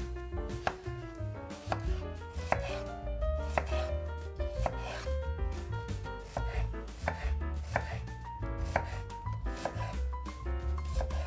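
Chef's knife chopping an onion on a bamboo cutting board: a run of repeated knife strikes on the board as the onion is sliced and then diced.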